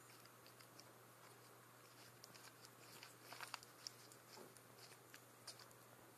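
Green iguana biting and chewing leafy salad greens: faint, irregular small crunches and clicks, with a short run of sharper ones about three and a half seconds in.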